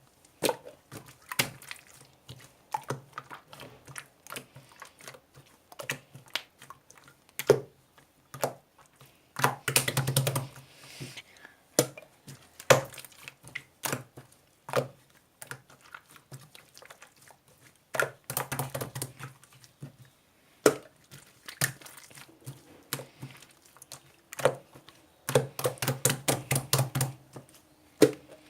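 Slime being squeezed and pressed by hand, giving irregular sticky clicks and pops, with several runs of rapid popping.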